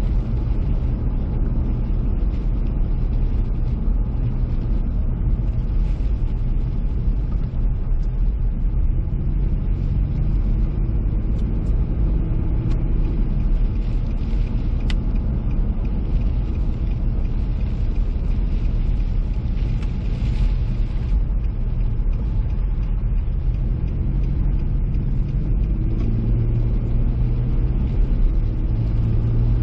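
Car driving, heard as a steady low engine and road rumble, with a short rise in hiss about twenty seconds in and a louder low engine note near the end.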